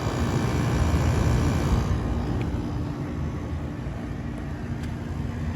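6,000 BTU Chill Series through-the-wall air conditioner's compressor running, a steady hum over fan and air noise; it sounds less beefy than a larger 8,000 BTU unit because it is smaller with less refrigerant.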